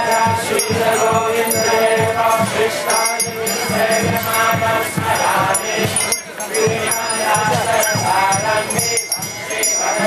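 A crowd chanting a kirtan together, with a steady drum beat and jingling hand cymbals or bells.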